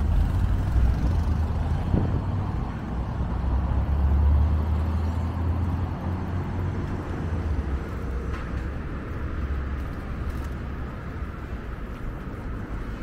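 City street traffic: the low, steady engine rumble of a motor vehicle close by, loudest about four seconds in and then slowly easing off.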